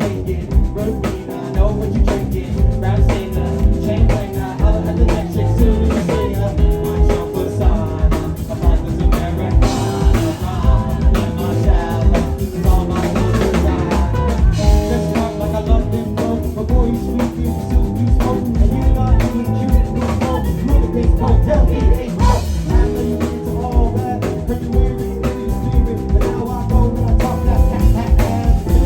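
Live band playing: drum kit keeping a steady beat with rimshots, over bass and guitar.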